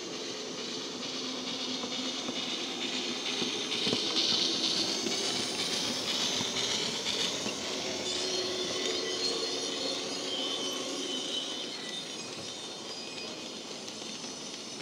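Model Kerr Stuart Victory tank locomotive running with a DCC steam sound decoder playing through its small built-in speaker, together with the running noise of its train of wagons on the track. It grows louder to a peak about four seconds in, then eases off as the train moves away.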